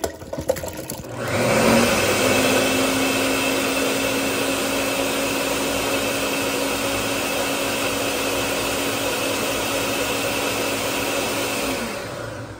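Ninja countertop blender spinning up about a second in after a few brief knocks, then running at a steady pitch as it purees softened beetroot and carrot with water, and winding down near the end.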